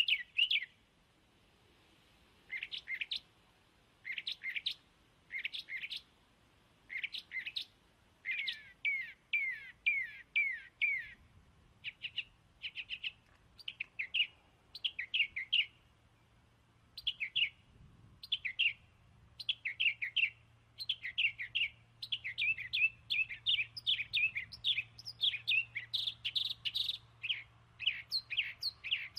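A bird chirping over and over in short bursts of quick, falling chirps about a second apart, coming thicker and faster toward the end.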